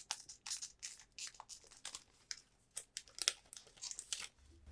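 Crinkling and crackling of a Pokémon booster pack's foil wrapper and cards being handled: irregular short crackles, with a brief lull about two seconds in.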